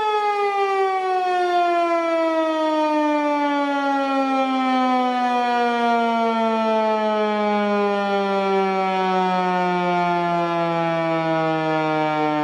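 ASC T-121 electromechanical outdoor warning siren winding down at the end of its alert test signal. Its pitch falls steadily from a high steady tone to a low one.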